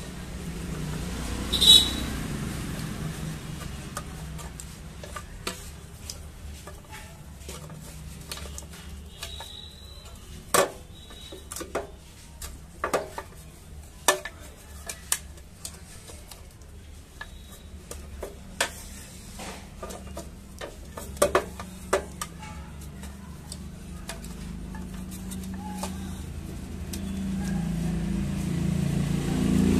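Scattered clicks and knocks of metal and plastic as the loosened side box of a Royal Enfield Classic 350 is worked off the frame and around its wiring connectors, with one sharper knock about two seconds in. A low steady rumble runs underneath and grows louder near the end.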